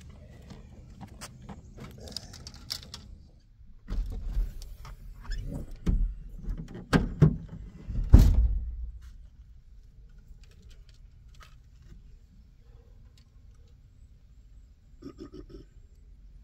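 Light clicks and clatter, then a run of heavy knocks and thumps about four to nine seconds in, then faint scattered ticks.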